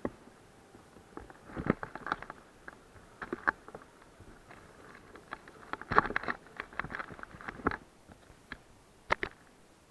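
Irregular clusters of clicks, scrapes and crackles close to the microphone of the action camera in the landed plane's nose. Near the end there is a sharp double click.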